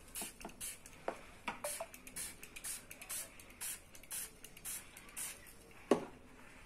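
Small hand spray bottle misting water onto wet watercolour paper: short hisses about two a second, stopping a little after five seconds. A single sharp knock follows near the end.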